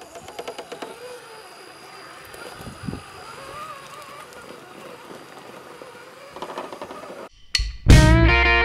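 Axial SCX10 RC crawler's electric motor and geared drivetrain whining faintly, the pitch rising and falling with the throttle as it crawls over rock, with scattered small clicks. Just before the end the sound cuts out for a moment and loud rock music with guitar begins.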